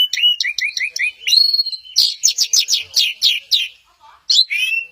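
Orange-headed thrush singing a varied song: a quick run of falling whistled notes and rising whistles, then about two seconds in a fast series of sharp downward-sweeping notes, with a short pause near the end before it starts again.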